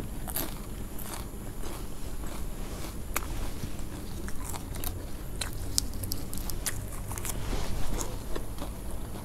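Close-up chewing of crispy fried spring roll, with irregular sharp crunches.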